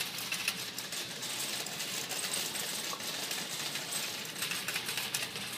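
Shopping cart being pushed across a hard store floor, its wire basket and wheels rattling in a steady stream of small clicks.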